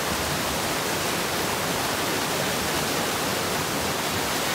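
Steady rushing noise of flowing water, like a mountain stream or small waterfall, even and unbroken.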